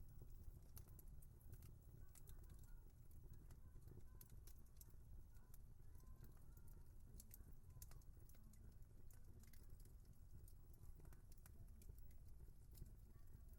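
Wood fire crackling faintly: irregular small, sharp pops and snaps over a steady low rumble.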